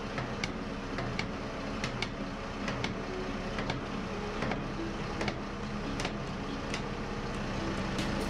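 Engine running steadily, with irregular sharp clicks over it, roughly one or two a second.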